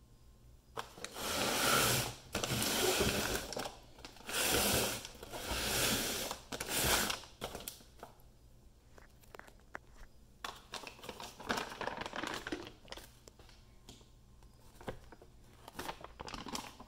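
Cardboard firework cake box being handled and turned over: several loud bursts of scraping and rustling cardboard in the first seven seconds, then lighter clicks and crinkles of handling.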